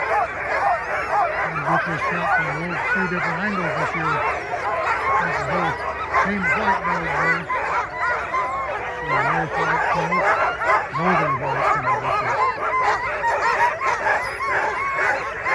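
A chorus of many sled dogs barking over one another in a constant din, the excited noise of harnessed teams waiting at a race start.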